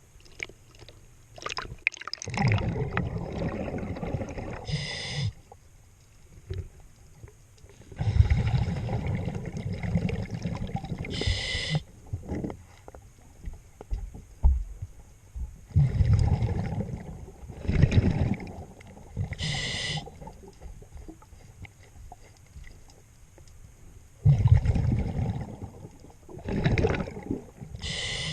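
Scuba diver breathing through a regulator underwater: rumbling bursts of exhaled bubbles every few seconds, each with a short whistling hiss from the regulator on the breath.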